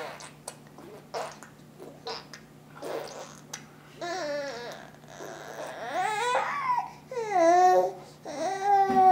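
A baby nearly six months old babbling: a few short, high-pitched vocal sounds that glide up and down, then a longer drawn-out one near the end.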